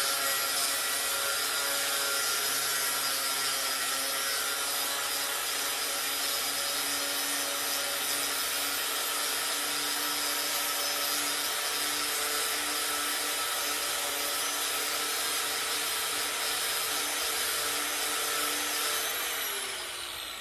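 Dremel rotary tool running at high speed, sanding a micarta knife scale: a steady motor whine over a rasping grinding noise. Near the end the tool is switched off and the whine falls in pitch as it winds down.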